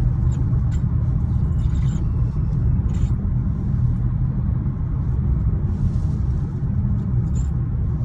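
Low road rumble inside a moving 2021 Kia Sorento, with several brief high creaks from the steering column, the kind that come on a slight turn of the wheel or over bumps.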